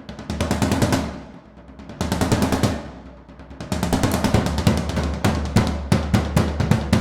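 Royal Enfield Continental GT 650's parallel-twin engine through an Emgo Hooligan exhaust with no dB killer, running at low revs with the throttle blipped three times; each exhaust pulse comes as a sharp crack, about eight a second, over a low rumble.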